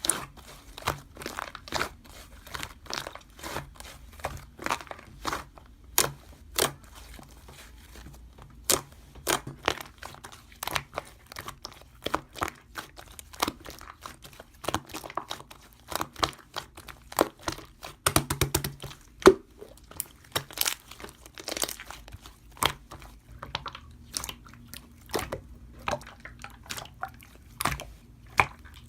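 Slime being squeezed and worked by hand, with many small crackling pops and crunches in an irregular stream.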